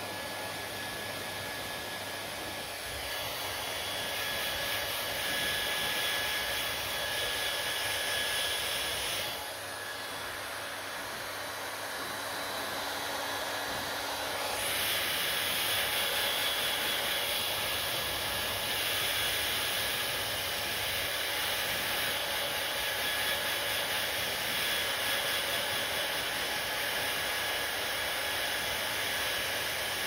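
Handheld hair dryer blowing steadily: a rush of air with a faint steady motor whine. It gets louder about three seconds in, drops back briefly near ten seconds, then rises again around fifteen seconds and stays there.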